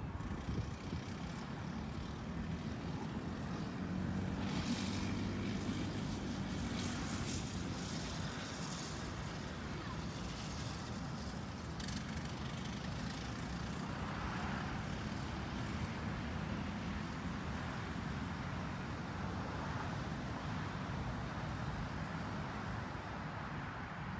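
A small vehicle engine droning as it laps a paved track, louder through the first half and steadier and fainter later.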